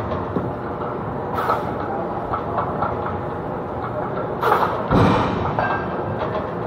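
Barbell push press reps in a gym over a steady din of gym noise. There is a short, sharp hissing burst about a second and a half in and again past four seconds, and a heavy thud about five seconds in.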